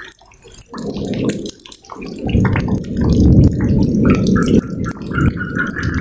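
Low rolling thunder over tropical rain, building about two seconds in and dying away near the end, with scattered drips. A pulsing frog chorus drops out at the start and comes back as the rumble fades.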